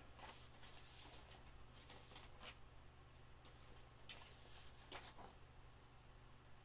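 Faint rustling of loose sheets of sketch paper being handled and flipped, in short soft strokes, over a steady low hum.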